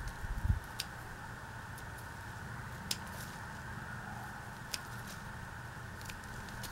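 A few faint, sharp snips of hand scissors cutting through ginger stems and roots, spread out over a steady background hum, with a low thump about half a second in.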